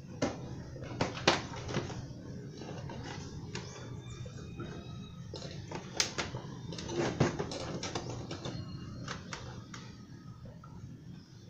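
Plastic fairing panels of a Kymco Super Z 125 scooter being worked into place by hand: irregular clicks and knocks of plastic against plastic, a few of them sharper, as the panel clips are pushed home.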